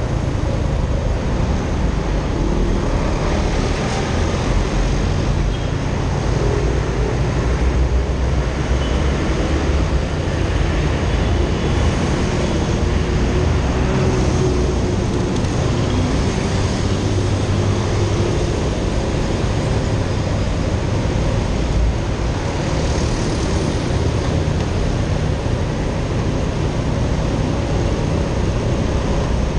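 Steady road noise from a motorcycle ridden slowly in traffic: its engine running, wind rumbling on the microphone, and other vehicles passing.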